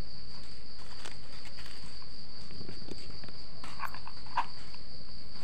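Continuous high-pitched chirring of crickets, with a few faint clicks about four seconds in.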